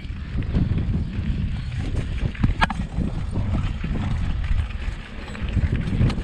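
Wind buffeting the microphone of a moving bicycle, with the hiss of tyres rolling over a rough, grooved road surface. One brief sharp click about two and a half seconds in.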